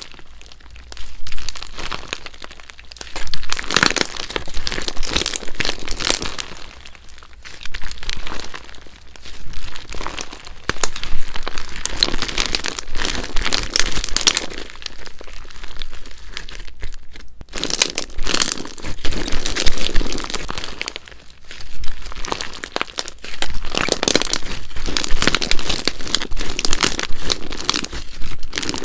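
Clear slime being stretched, folded and kneaded by hand, crackling and crinkling loudly in spells of a few seconds with short lulls between handfuls.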